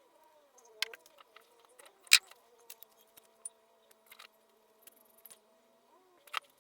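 Small metal motor parts being handled and set down during cleaning of a disassembled fan motor: scattered clicks and light knocks, the sharpest about two seconds in.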